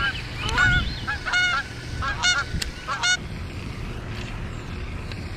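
A goose honking repeatedly, a quick series of short, pitched calls over about three seconds.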